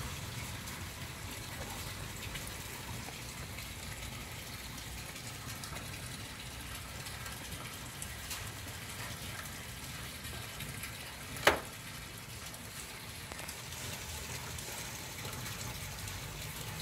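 Steady rushing noise with faint rustling and ticks as sulcata tortoise hatchlings feed on a heap of chopped leaves, and one sharp click about eleven and a half seconds in.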